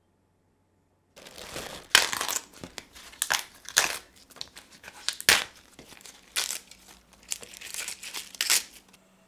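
Fresh spring greens leaves being torn by hand, stripped off their stems: a series of crisp crinkling rips starting about a second in, about a dozen sharp tears.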